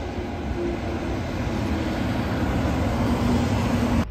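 Shinkansen Doctor Yellow inspection train (923 series) running through the station at high speed. Its rushing, rumbling noise slowly grows louder, and a faint low whine drops slightly in pitch.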